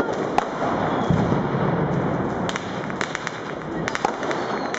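Fireworks and firecrackers going off all around in a dense, continuous crackle, with sharp bangs scattered through it, several close together in the second half, and a deeper rumble in the first couple of seconds.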